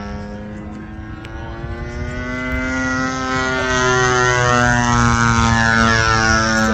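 Gas-powered RC airplane engine running in flight, getting louder from about two seconds in, with its pitch shifting and dropping about halfway through as the plane passes.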